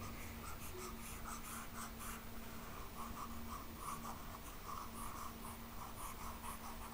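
A stylus scrubbing back and forth across a tablet screen in quick, faint strokes, erasing handwritten notes. A steady low hum runs underneath.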